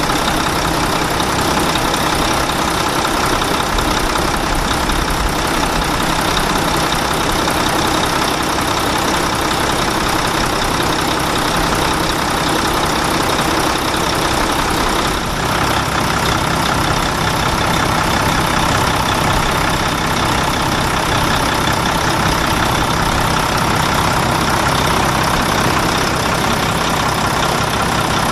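Truck engine running steadily at idle, an even, unchanging drone with a brief small dip about halfway through.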